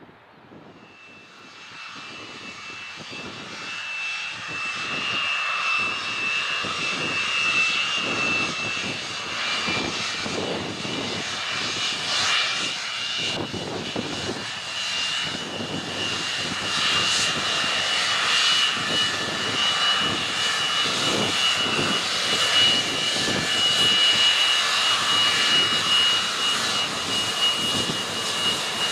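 Boeing 737 jet engines running at low power as the airliner taxis, growing louder over the first few seconds and then holding steady. A high, steady whine sits over the rushing engine noise.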